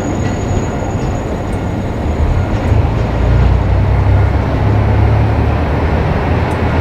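JR Kyushu KiHa 200 diesel railcar running, a steady low rumble of engine and rolling stock that grows louder a couple of seconds in.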